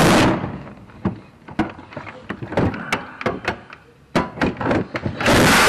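Reciprocating saw (Sawzall) running in two loud, harsh bursts: one cuts off just after the start and another starts about five seconds in. Between them come scattered knocks and clicks of tools and parts being handled.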